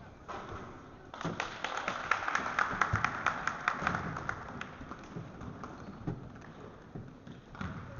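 Spectators at a basketball game clapping rapidly and cheering for a few seconds, starting about a second in and fading out, with a few scattered thuds.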